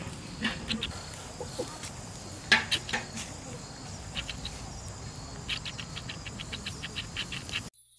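Outdoor rural ambience: a steady background hiss with scattered clicks and a quick run of short high chirps near the end. It cuts off abruptly just before the end.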